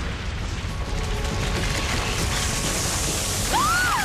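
Steady heavy rumble of a lava-and-crumbling-rock sound effect, with one rising-and-falling wail near the end.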